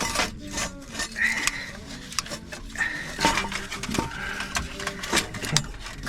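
Metal parts clinking and knocking irregularly as exhaust manifold parts are worked loose by hand, with a few short scraping squeaks of metal on metal.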